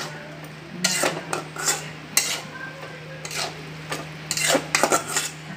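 Metal spatula scraping and knocking against an aluminium kadai as chopped radish leaves and radish pieces are stirred. The strokes come at an uneven pace, with a quick run of scrapes near the end.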